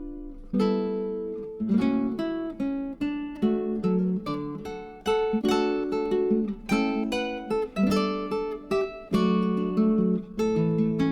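Background music: acoustic guitar playing a run of plucked notes and strummed chords, each note ringing and fading.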